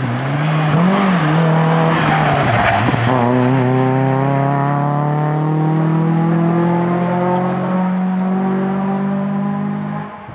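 Renault Clio rally car's four-cylinder engine driven hard out of a bend, with a throttle blip about a second in and a gear change about three seconds in. After that it pulls in one gear, the engine note climbing slowly for several seconds until another gear change near the end.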